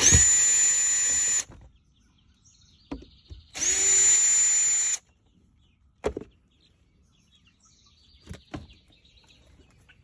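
A small electric motor spinning up and running steadily in two bursts of about a second and a half each, with a few sharp clicks between them.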